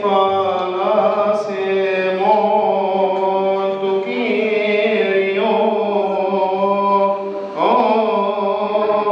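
A male deacon chanting a Coptic Orthodox liturgical hymn solo into a microphone, in long drawn-out melismatic notes. A new phrase starts with a rising slide about seven and a half seconds in.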